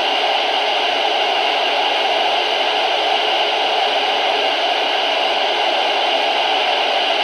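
Loud, steady radio static: the receiver has lost the weather warning broadcast's signal, so the synthesized warning voice is replaced by hiss.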